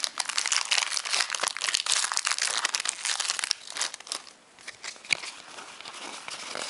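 Foil-lined Pokémon booster-pack wrapper being crinkled and torn open by hand, a dense crackle that stops about three and a half seconds in. Softer rustling and a few light clicks follow as the cards are handled.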